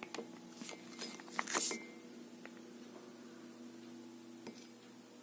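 Faint clicks and rustles of a plastic squeeze bottle being handled and squeezed as chocolate syrup goes into a cup, with short hissy spurts about a second and a half in. A steady low hum runs underneath.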